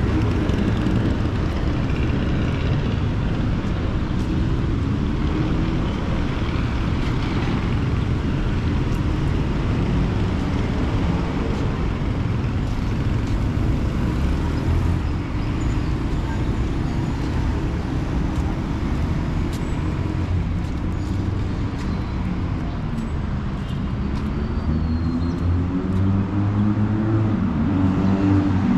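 A road vehicle's engine running in traffic with steady road rumble. Its pitch rises and falls as it speeds up and slows, with a clear rising rev near the end.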